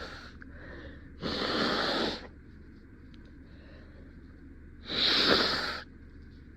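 A person blowing their nose into a tissue twice, each blow about a second long.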